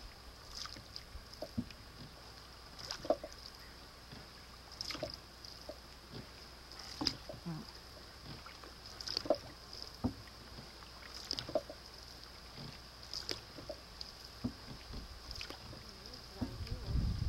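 Canoe paddle strokes on calm water: a short dip, splash or knock about every two seconds as the bow paddler keeps a steady rhythm.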